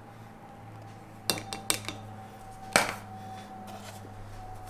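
A metal spoon and cocoa tin being handled: three light clinks in the second second, then one louder clink with a short ring as the tin is set down on the countertop. A steady low hum runs underneath.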